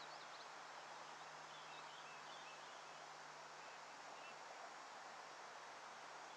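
Near silence of open-air ambience: a steady faint hiss, with a few faint high bird chirps in the first couple of seconds.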